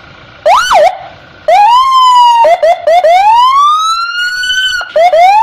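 Electronic police car siren: a quick up-and-down whoop, then rising tones, several short chirps and a long slow rising wail that cuts off, with two more chirps and a new rise near the end.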